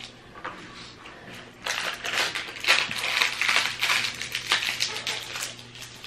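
Plastic packaging crinkling as it is handled and opened, a dense crackle starting about a second and a half in and easing off near the end.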